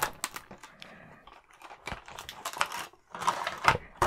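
Stiff clear plastic blister packaging crackling and clicking as it is handled and separated from its cardboard backing card, in short irregular bursts that are busiest and loudest near the end.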